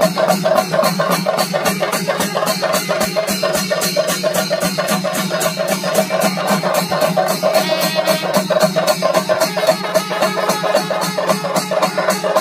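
Chenda melam: a large ensemble of chenda drums beaten with sticks in a fast, even rhythm of about four strokes a second, with kombu horns sounding held notes over the drumming.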